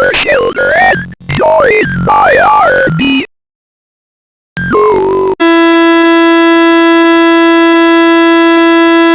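Glitchy synthesized sounds, warbling and sliding up and down in pitch, cut off suddenly; after about a second of silence a short falling glide leads into a loud, steady, buzzy electronic tone that holds to the end.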